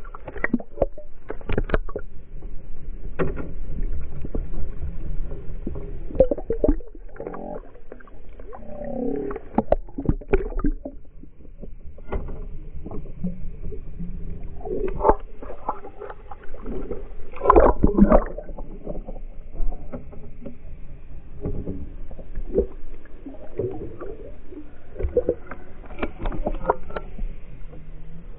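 Water heard through a GoPro's waterproof housing as it is towed behind a trolling boat: water rushing and splashing against the camera as it dips in and out of the surface, over a low rumble from the boat. The sound is muffled, with repeated sudden knocks and splashes.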